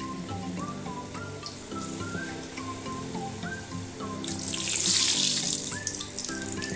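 Samosa deep-frying in hot oil in a steel kadai, the oil bubbling and sizzling; the sizzle swells loudly about four seconds in as a wire spider strainer is worked through the oil. Background music with a melody plays throughout.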